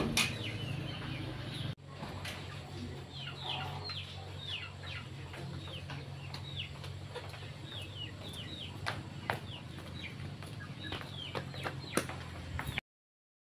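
Birds cheeping: many short, high, falling chirps at irregular intervals over a steady low hum, with a few sharp taps, cutting off abruptly near the end.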